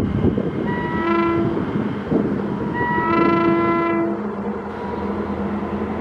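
Indian Railways locomotive horn sounding two blasts, a short one about a second in and a longer one about three seconds in, over the steady rumble and clatter of a running train.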